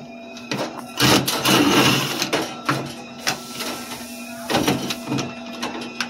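Small power driver whirring in short runs as it backs screws out of a vending machine door, over a steady electrical hum.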